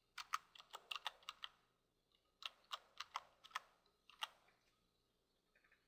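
Computer keyboard keys clicking as a password is typed, in two quick runs of key presses with a pause of about a second between them.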